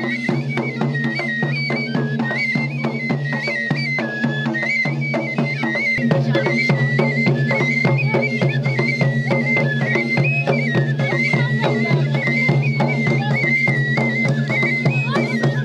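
Traditional Tajik wedding music: hand drums beat a fast, even rhythm under a high melody that steps between notes.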